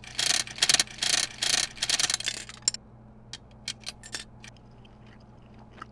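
Cartoon gumball machine rattling in a dense clatter for about two seconds, then a scatter of separate small clicks and taps that thins out.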